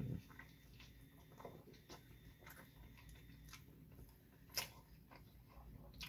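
Faint close-up sounds of a person biting into a Wendy's Asiago Ranch sandwich and chewing it, with small wet mouth clicks; one sharper click about four and a half seconds in.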